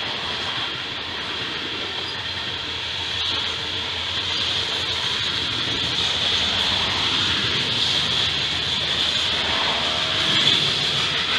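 Freight train of coal hopper cars rolling past: a steady rush of steel wheels on rail with a hiss, getting a little louder in the second half.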